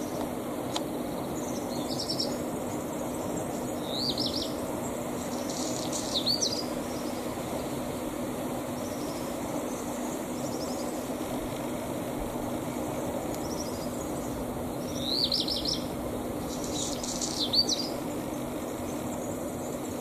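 A songbird singing short, high phrases of quick falling notes, about five in all, in two groups with a long gap between them, over a steady low background hum.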